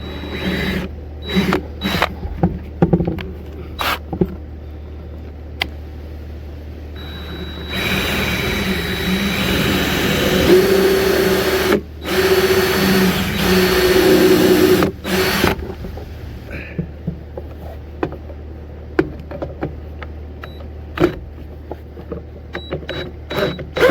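A right-angle (90-degree) drill boring an angled pilot hole for the bottom screw. It runs for about eight seconds in two stretches, with a brief stop between them, and its pitch steps as the bit loads. Scattered clicks and knocks of handling come before and after.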